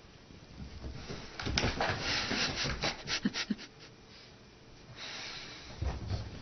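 Piglet and cat scuffling at play: rustling with a quick run of taps and knocks from about a second in, then a shorter rustle with a couple of soft thumps near the end.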